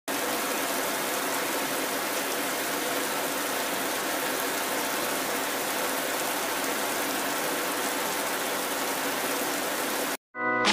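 Automatic car wash water jets and cloth brushes beating on a car's windshield and roof, heard from inside the car as a steady rush of spray. It cuts off suddenly near the end, and music starts.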